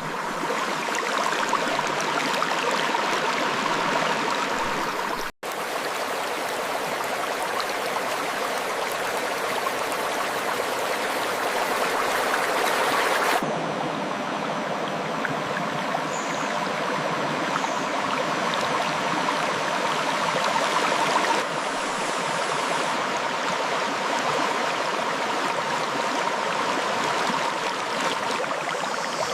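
River water flowing and rushing over rocks, a steady dense splashing. It cuts out for an instant about five seconds in, and its tone shifts slightly twice later on.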